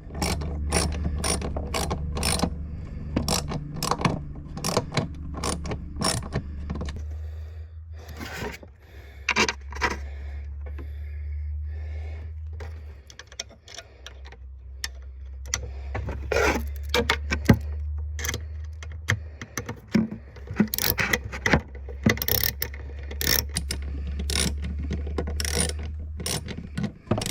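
Small socket ratchet driving screws that fasten a drawer latch, its pawl clicking in quick runs of strokes with short pauses, over a steady low hum.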